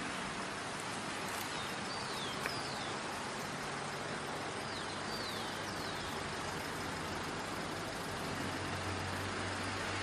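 Distant road traffic: a steady hiss of traffic noise with a low engine hum that grows a little near the end, and a few faint high, falling chirps over it.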